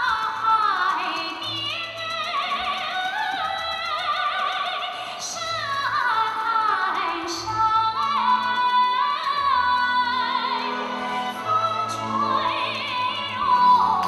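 Recorded song with a woman singing in a Chinese folk-opera style, her voice wavering in a wide vibrato and sliding between notes, over a bass and orchestral backing.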